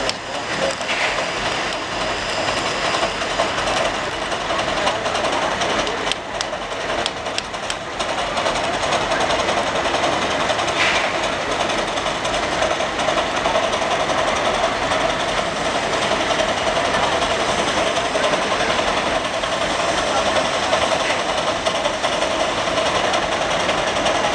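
Half-scale Case steam traction engine pulling a weight-transfer sled under load, its exhaust chuffing steadily; the working sound grows louder about eight seconds in.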